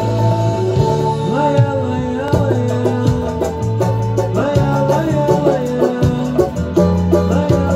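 Brazilian samba banjo strummed with a pick in a quick pagode rhythm, played along with a recorded pagode song. A bass line runs throughout, and a sung vocal melody comes in about a second and a half in.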